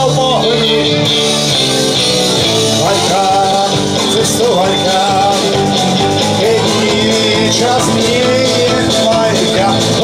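Live band playing an upbeat song through a PA: clarinet, acoustic guitar, bass guitar and drum kit, with a man singing into the microphone.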